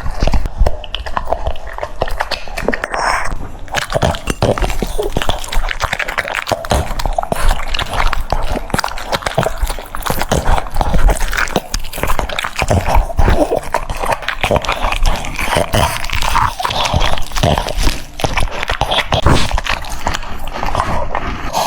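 French bulldog eating, chewing noisily with a dense run of quick crunching and smacking clicks.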